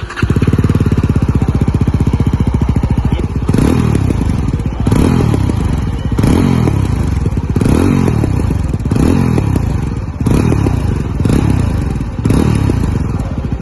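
Yezdi Roadster's 334 cc single-cylinder engine idling through its stock exhaust with the dB killers still fitted, then revved in about eight quick throttle blips, each dropping back with crackles on the overrun.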